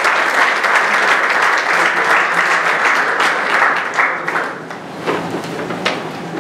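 Audience applauding, dying away about four and a half seconds in, followed by a couple of light knocks.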